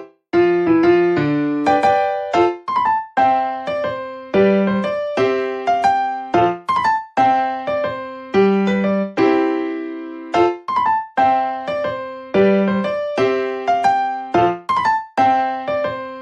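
Background music: a piano or electric-piano melody with struck notes in a steady, repeating rhythm.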